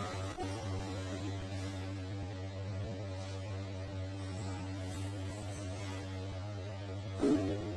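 Steady electrical hum: a low drone with a stack of overtones, holding level throughout. A guitar strum comes in near the end.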